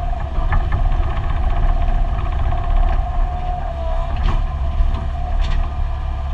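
Compact excavator's diesel engine running under load, heard from inside the cab, with a steady hydraulic whine that sags briefly in pitch now and then as the controls are worked. A few short knocks come through while the bucket digs.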